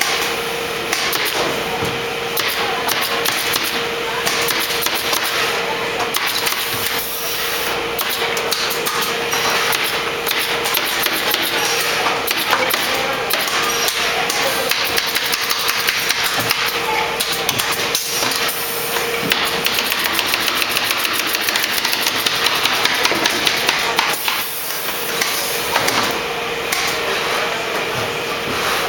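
Pneumatic staple guns firing in quick series of sharp clacks as canvas is stapled to wooden stretcher bars, over a steady machine hum.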